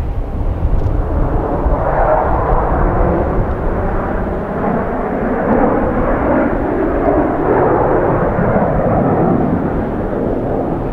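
Jet noise from a formation of five F-16 Fighting Falcon fighter jets in flight: a steady, toneless sound that grows louder about two seconds in, over a low rumble.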